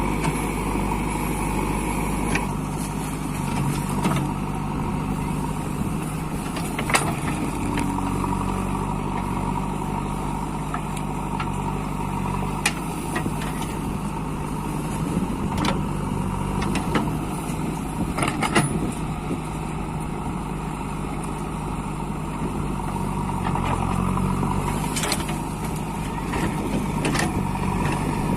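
JCB 3DX backhoe loader's diesel engine running steadily under work, with occasional sharp knocks and clanks from the working machine.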